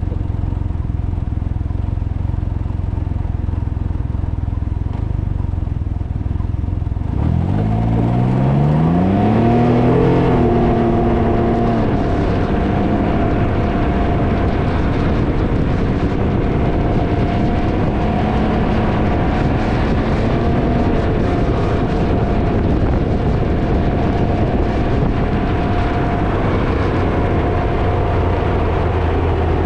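Wind buffeting the microphone over the low rumble of a Can-Am Ryker three-wheeler on the move. About seven seconds in, the engine revs up, rising in pitch as the bike accelerates, then settles into a steady cruising note under the wind noise.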